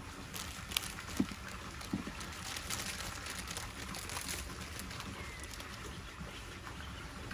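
Outdoor ambience: a steady background hiss with scattered light clicks and rustles, and one faint short chirp about five seconds in.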